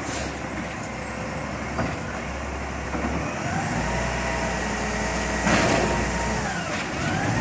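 Heavy truck's diesel engine running with a steady low rumble. From about three and a half seconds in, whining tones rise and fall over it, and a loud hiss comes about two seconds later.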